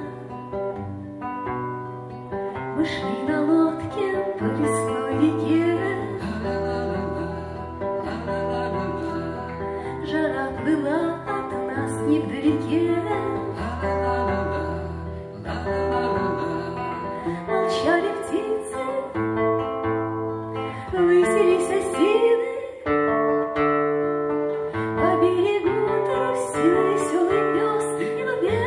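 A woman singing a bard song with acoustic guitar accompaniment.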